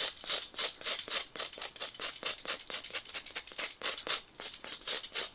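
A knife blade scraping the charred crust off stick bread (Stockbrot) on its stick, in quick repeated strokes of about five a second, to take off a burnt black spot.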